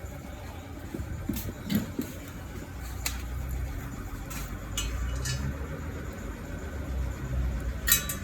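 Scattered metallic clinks and knocks of tools and wheel parts being handled during a car tyre change, the loudest a quick double knock near the end, over a low rumble that grows from a few seconds in.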